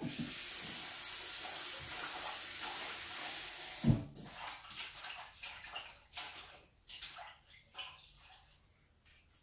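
Kitchen tap running steadily into the sink, shut off about four seconds in with a sharp knock; after that, scattered light clinks and knocks of things being handled in the sink.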